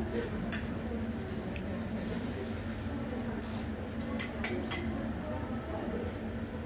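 Cutlery and dishes clinking lightly a few times, with a cluster of clinks about four seconds in, over a steady low hum of the restaurant.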